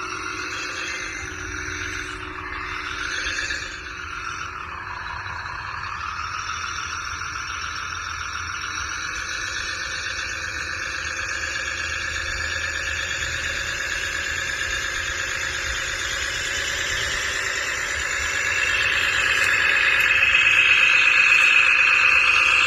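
Whine of a radio-controlled model vehicle's electric motor and gears. The pitch dips and rises in the first few seconds, then climbs slowly and grows louder toward the end.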